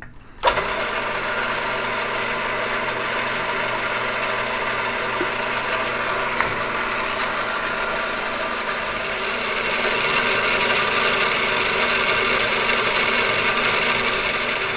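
Vertical milling machine's spindle switches on about half a second in and runs steadily with a machine hum while a twist drill bores an oil hole into the new shaft, a little louder in the second half as the drill cuts deeper.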